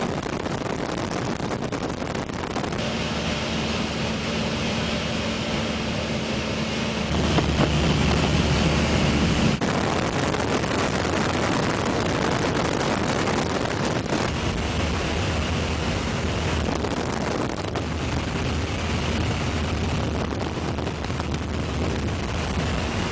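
Steady drone of an aircraft's engine with wind rushing over the microphone, heard from aboard. It swells louder for about two seconds around a third of the way in, and its hum shifts a few times.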